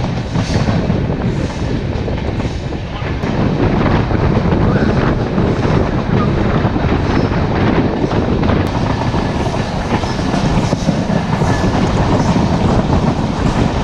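Passenger train running on the track, heard from an open coach doorway: a continuous rumble and rattle of the wheels and coach, with clacks over the rail joints.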